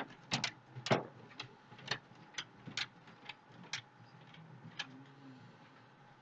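A series of small, sharp clicks at irregular spacing, about a dozen in the first five seconds, over a faint steady background hum.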